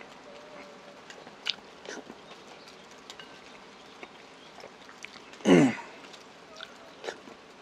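Eating sounds close to the microphone: soft chewing and small clicks of a spoon on a bowl, with one short, loud sound about five and a half seconds in that falls in pitch.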